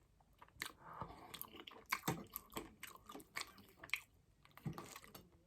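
Faint, close-miked eating sounds: irregular soft crackles and clicks of food being handled and chewed.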